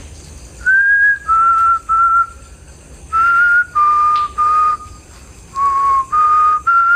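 A person whistling a short tune: three phrases of about three clear notes each, every note held about half a second, the pitch stepping down and back up within each phrase, with short pauses between phrases.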